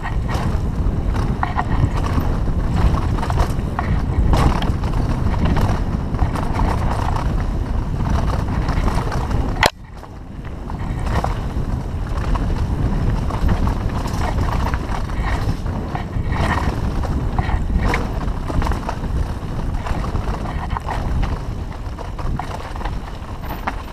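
Wind buffeting the microphone over rumbling rolling noise from a fast downhill ride on a bumpy trail. About ten seconds in there is a sharp click and the noise briefly drops, then builds again.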